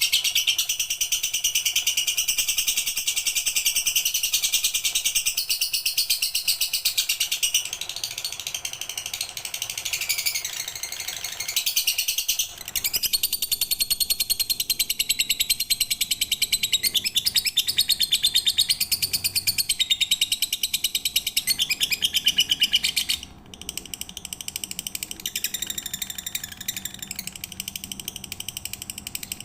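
Lovebird singing a long, very fast, high-pitched chattering trill that runs on almost without pause, breaking briefly about twelve and twenty-three seconds in.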